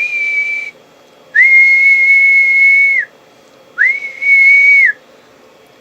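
A person whistling one steady high note three times, each held for one to two seconds, with a quick slide up at the start and a drop at the end. The whistles are the usual way to drive a CB radio amplifier to peak power for a wattmeter reading.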